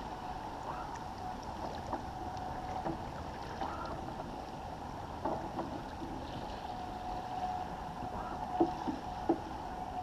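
Water rushing and splashing along the hull of a First 30 sailboat moving under sail, with a thin steady tone over it. A few short knocks from the deck gear, the loudest two near the end.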